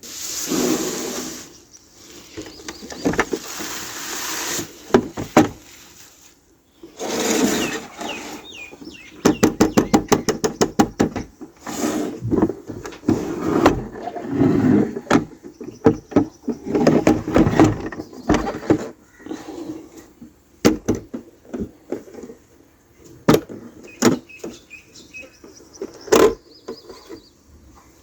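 Small toy pieces and their packaging being handled close up: scattered clicks, taps and rubbing, with a quick run of about ten clicks a second lasting a couple of seconds.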